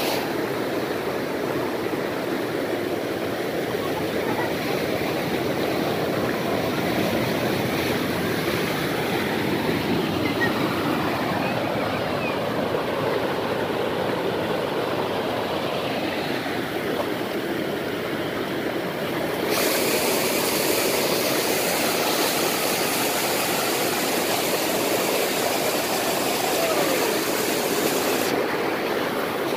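Forest stream cascading over rocks and a small waterfall: a steady rush of water. About two-thirds of the way through it turns brighter and a little louder.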